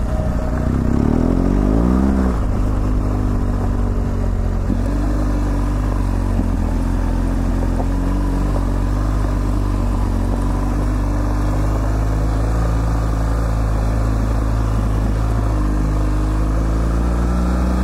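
BMW GS Adventure's boxer-twin engine running while riding, revving up and easing off in the first couple of seconds, then pulling at a steady pitch.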